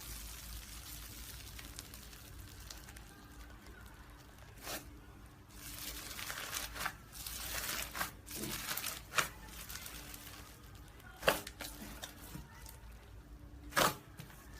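Slime being squeezed and stretched by hand: a soft sticky crackling with a few sharp pops.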